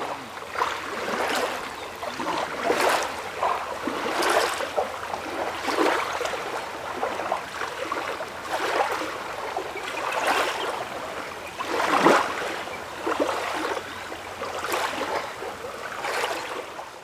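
Water splashing and lapping in irregular surges every second or two, over a steady rush of moving water.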